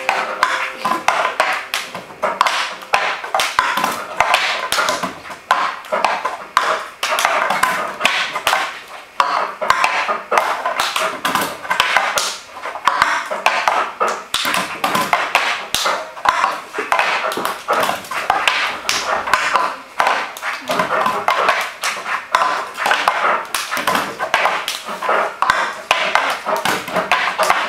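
Plastic cups being tapped, flipped and set down on a wooden tabletop, mixed with hand claps, in the repeating rhythm of the cup game. Two players are doing it at once.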